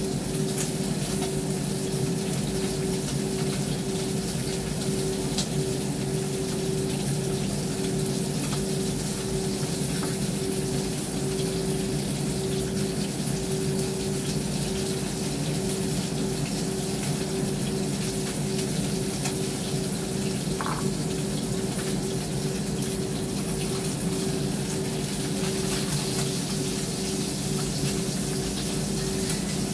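Kitchen range hood extractor fan running steadily: a constant rushing of air with an even motor hum.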